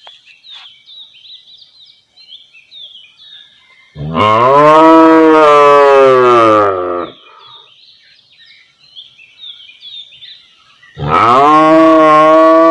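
Cow mooing: two long, loud moos, the first about four seconds in lasting about three seconds, the second starting near the end. Faint high chirping can be heard between them.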